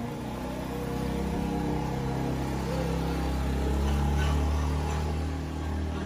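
A vehicle's motor running steadily, growing louder up to about four seconds in, then easing off.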